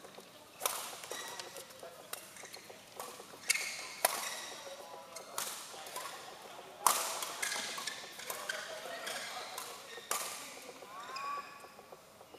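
Badminton rally: racquets smacking the shuttlecock about every one to one and a half seconds, each hit echoing in a large hall, with shoes squeaking on the court floor near the end.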